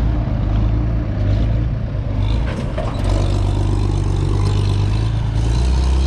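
Claas Dominator 85 combine harvester's diesel engine running loud and steady, picking up revs near the end.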